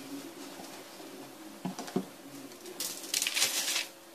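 Clear plastic food container being handled and set down on a countertop: two light knocks, then about a second of loud rustling scrape near the end.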